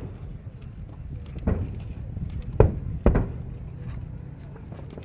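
Aerial fireworks shells bursting: several sharp booms at uneven intervals, each trailing off in a rumbling echo, the loudest about two and a half seconds in. A crowd murmurs underneath.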